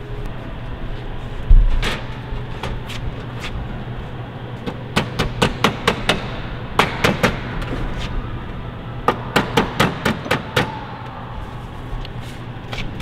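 Runs of sharp metallic clicks, about four to five a second, as the edge of an aluminium aircraft skin panel is worked with hand tools on a wooden bench. A dull thump comes about a second and a half in.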